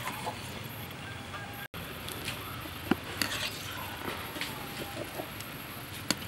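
Honking calls of farm fowl over a low steady hum, with a couple of sharp clicks.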